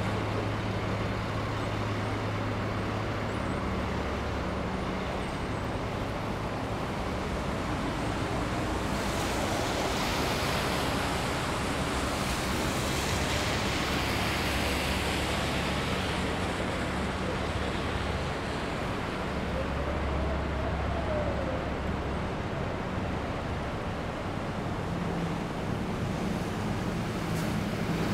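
City street traffic noise: a steady low hum of engines, with a vehicle's tyre hiss swelling and fading about ten seconds in.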